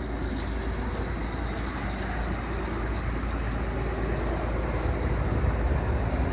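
The diesel engine of a MAN M2000 concrete mixer truck running steadily, a deep even rumble that grows slightly louder near the end.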